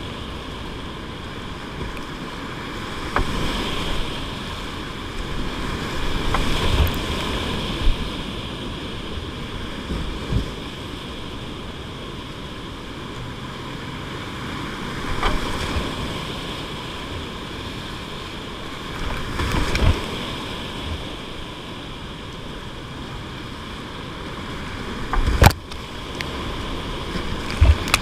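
Rushing whitewater of a river rapid heard close up from a kayak, a steady roar of water with repeated surges of splashing as the boat punches through waves. A sharp splash or hit stands out near the end.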